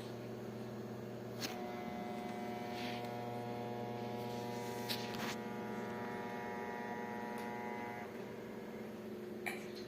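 LG BU60PST projector running with a steady mechanical hum made of several tones, which shift in pitch about a second and a half in and again near the end, with a few sharp clicks between: the mechanical noise fault the owner is complaining of.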